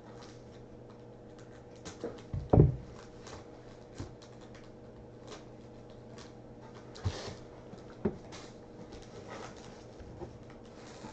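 A 1978 Topps baseball-card rack pack being handled and opened, its cellophane wrapper and cards giving scattered crinkles and clicks. A heavy thump comes about two and a half seconds in, with sharper knocks near seven and eight seconds, over a faint steady hum.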